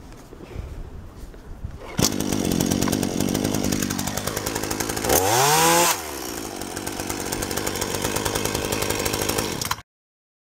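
Hyundai HYC3816 38cc two-stroke chainsaw pull-started, catching about two seconds in and running. About five seconds in it revs up in a rising whine, then drops abruptly as the chain brake is snapped on, and runs on until the sound cuts off suddenly near the end.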